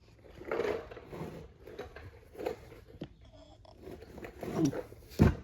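Ratchet and socket on an extension straining against a tight wheel nut on a three-wheeler's front hub: scattered creaks and clicks with strained breaths as the nut resists, and a few sharper knocks near the end.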